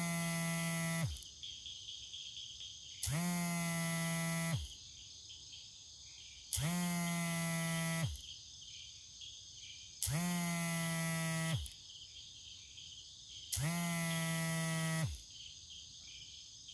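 Mobile phone vibrating in a repeating pattern: a low buzz about a second and a half long, every three and a half seconds, its pitch rising as each buzz starts and dropping as it stops. The first buzz ends about a second in, then four more follow, with a faint hiss in the gaps.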